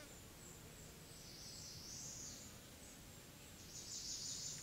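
Quiet summer woodland ambience with a faint, steady high insect hum. Two short, high hissy rasps about a second long rise over it, one a little past a second in and one near the end.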